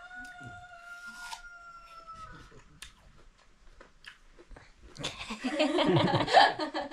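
A rooster crowing once: one long held call that drops in pitch as it ends. About five seconds in, people break into loud laughter.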